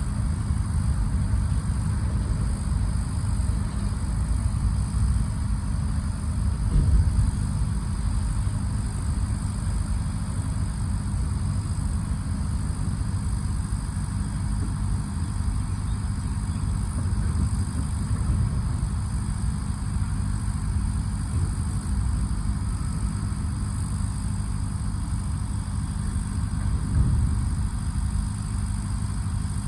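Truck engine running steadily as a continuous low drone.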